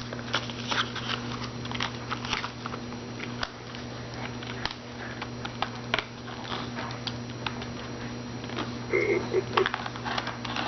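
Plastic toy packaging crinkling and clicking irregularly as a child handles it and pulls at it, trying to get it open, over a steady low hum.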